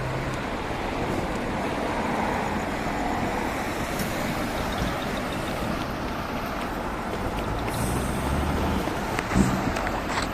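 Steady rumble of large truck engines running and moving, with a short knock about nine seconds in.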